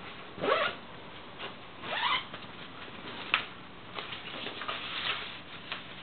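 Zipper on a nylon rifle-case pocket pulled in two quick rising strokes, followed by rustling handling noise and a few sharp clicks.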